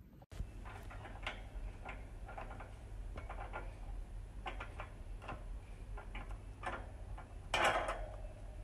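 Irregular small clicks and ticks from a hamster gnawing and pawing at the wire bars of its cage top, with a louder scrape near the end.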